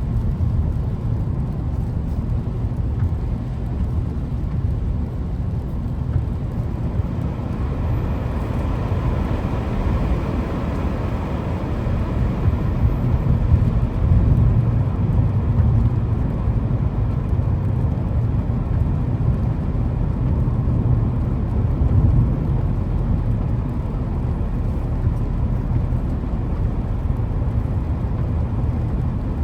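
Steady low rumble of a car being driven, with engine and road noise.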